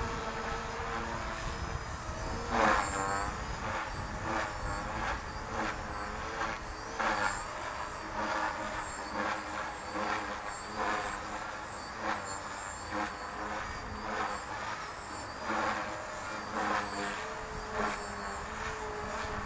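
Electric 450-size RC helicopter (HK-450 PRO V2) flying aerobatics overhead. Its motor and rotor give a steady whine, with rotor whooshes swelling and fading about every three quarters of a second as the blades change pitch through the manoeuvres.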